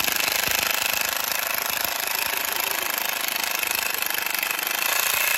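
Cordless power driver running continuously under load, sinking a pocket-hole screw to join a 2x3 wood frame corner.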